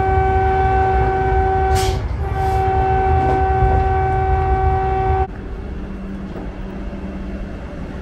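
Train horn sounding one steady note in two long blasts, the second cut off sharply about five seconds in, over the low rumble of a train. After that only a quieter steady rumble with a faint low hum remains.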